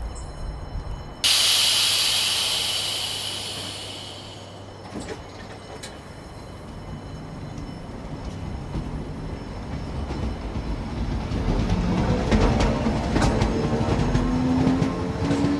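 Old SNCB electric multiple unit: a sudden loud hiss of compressed air about a second in, fading away over about three seconds. The train then moves off, with a whine that rises in pitch as it gathers speed and wheels clicking over the rail joints.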